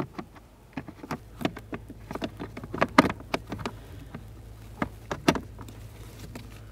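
Scattered sharp plastic clicks and knocks as a replacement blend door actuator is worked onto the blend door lever and lined up with its mounting holes on the plastic HVAC blower box. A low steady hum runs underneath from about a second in.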